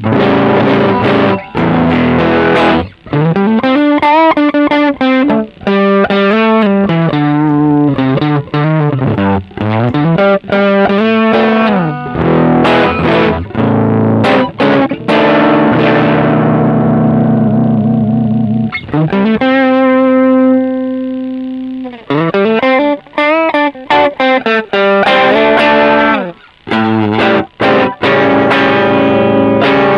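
Electric guitar played through an engaged Caline Green Mamba overdrive pedal, giving a driven, distorted tone while its tone control is being tried out. Single-note phrases with several string bends alternate with chords, and one chord is left to ring and fade for a few seconds near the middle.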